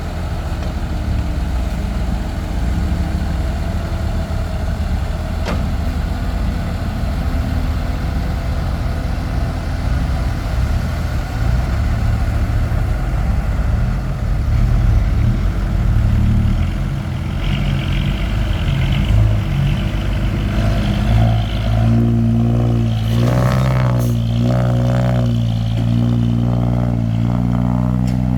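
Heavy diesel engine running steadily, its note wavering up and down over the last several seconds.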